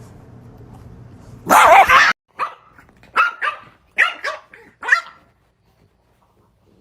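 Dog barking: one loud drawn-out bark about one and a half seconds in, then a run of about six short barks that stops about five seconds in.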